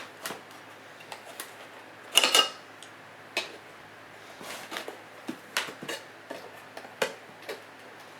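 Metal tools clinking and scraping against a sealed steel surplus ammunition tin as it is worked open, in irregular sharp clicks and knocks with a louder clatter about two seconds in.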